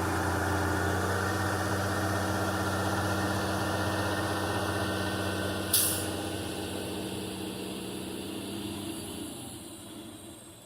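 A heavy vehicle's engine running steadily, with a short sharp burst of air hiss about six seconds in, typical of a truck's air brakes. After the hiss the engine sound fades gradually away.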